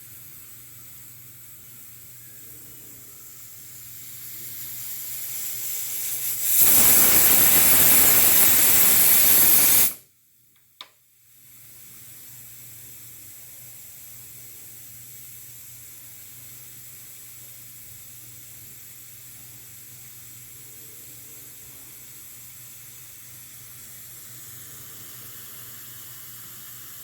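Pressure cooker hissing steadily as steam escapes. The hiss builds until, about six and a half seconds in, the whistle blows with a loud rush of steam for about three seconds and then cuts off abruptly. After a brief gap and a single click, the steady hiss resumes.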